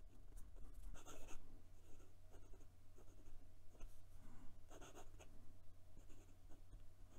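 Fountain pen's fine #6 steel nib scratching faintly across lined notebook paper in short writing strokes, the loudest strokes about a second in and again near five seconds.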